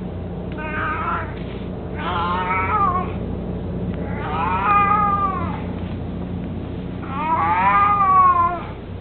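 An elderly house cat meowing four times in drawn-out calls that rise and fall in pitch, the last two longer and louder than the first two.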